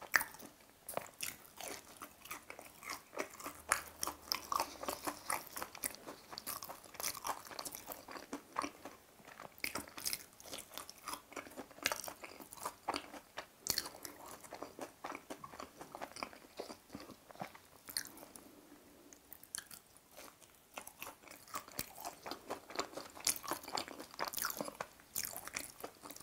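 Close-miked crunching and chewing of a thin, crispy breaded fried chicken cutlet (Lotteria G-Pie): many sharp crunches, with a quieter stretch a little past the middle.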